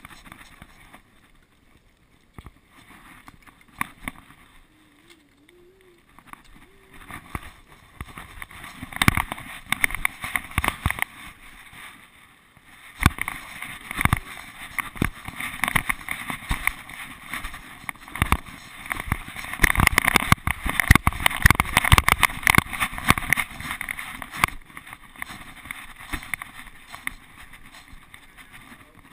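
Irregular rubbing, bumping and clattering from a GoPro Hero 2 camera strapped to a dog as the dog moves about. It is fairly quiet for the first few seconds, then busy with knocks from about eight seconds in.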